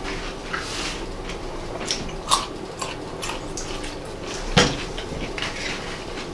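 Forks tapping and scraping in bowls of wet pickled food while two people eat, with small wet clicks throughout and one louder knock about two-thirds of the way through.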